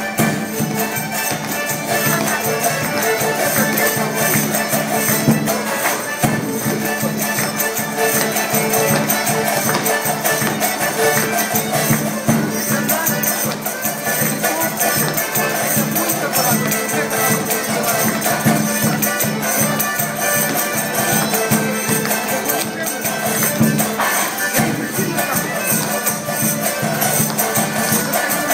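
Belarusian folk polka music playing with a steady beat.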